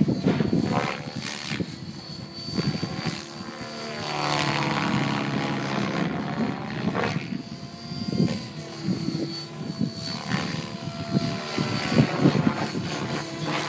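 Synergy E7SE 700-class electric RC helicopter flying 3D aerobatics: the rotor blades whoosh and chop, swelling and fading in loudness as it manoeuvres, with a thin steady high whine underneath.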